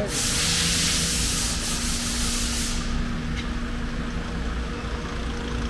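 Cargo van driving, heard from inside the cabin: a steady engine and road rumble with a constant hum, and a rushing hiss over it that fades after about three seconds.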